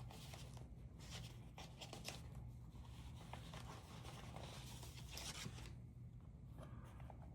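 Faint rustling and sliding of paper as stamps and stamp sheets are handled and shuffled, with small scattered clicks and rubs.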